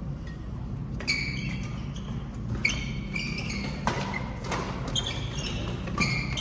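Badminton doubles rally: rackets smacking the shuttlecock with sharp hits roughly every second or so, and sneakers squeaking on the court floor between shots, over a steady low hum in a large hall.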